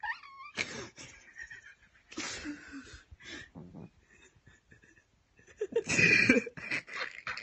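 Breathy, wheezing laughter in short irregular bursts, with a brief rising squeal at the start and the loudest fit about six seconds in.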